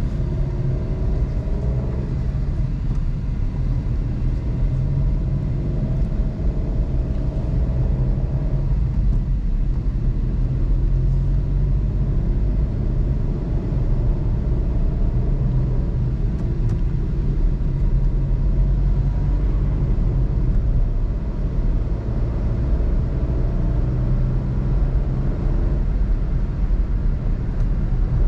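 Suzuki Alto's 660cc three-cylinder engine running with the air conditioning switched on, heard from inside the cabin as a steady low rumble.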